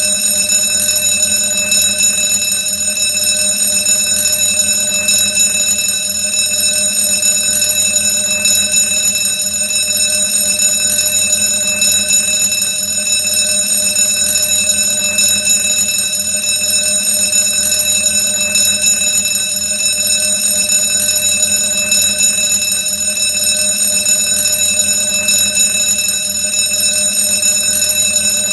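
Old-fashioned alarm bell ringing steadily and without a break.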